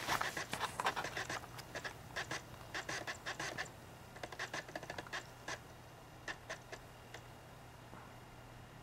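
iBook G3's slot CD-ROM drive clicking and scraping as it reads the Mac OS X install disc, a drive that sounds terrible to its owner. The clicks come thick and fast for about three and a half seconds, then sparser, and stop about seven seconds in, over a faint steady hum.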